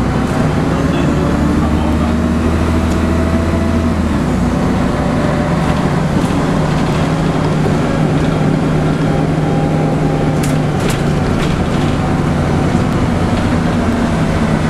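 Scania N113CRB city bus's rear-mounted six-cylinder diesel engine running under way, heard from inside the non-air-conditioned cabin with road and wind noise coming through the open windows. The engine note shifts about four seconds in, and a few short rattles from the bodywork come around ten seconds in.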